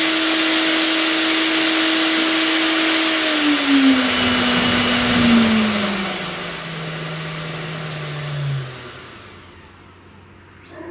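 Small air-cooled CNC router spindle running at 20,000 RPM: a steady whine over the rush of air from the cooling fan on its top. About three seconds in it is turned down in steps, the whine falling in pitch and the fan noise fading, until it winds down to a stop near the end.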